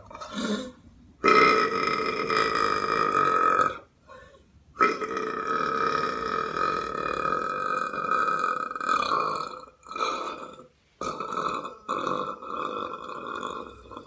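A person belching: a short belch, then a long, steady-pitched belch of about two and a half seconds. After a pause comes an even longer one of about five seconds, then several shorter belches in quick succession.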